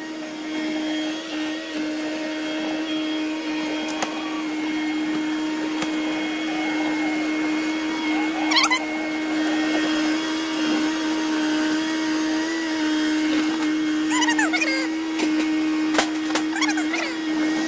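John Deere 160LC excavator running under load with a steady whine, handling a large boulder in its bucket. There are a few short clanks and squeals about halfway through and again near the end.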